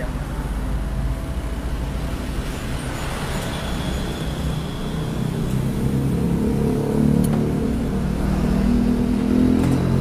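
A motor or engine running with a steady low hum, growing louder from about halfway through and dropping off near the end.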